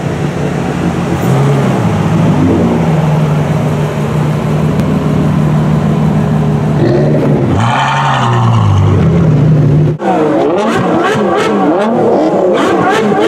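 Ferrari F12 Berlinetta's 6.3-litre V12 through an aftermarket iPE exhaust. It drives past at low speed with a steady engine note and gives a short burst of throttle about eight seconds in. Then, standing still, it is revved repeatedly, the pitch rising and falling, with sharp pops and crackles from the exhaust.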